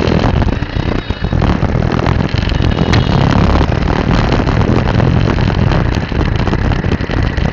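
Engine and road noise of a vehicle moving through traffic, heard from on board as a steady, dense rumble.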